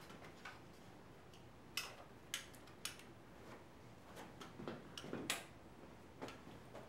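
Faint handling sounds from a video camera on a tripod: three sharp clicks within about a second, then softer knocks and footsteps as the person steps away across the floor.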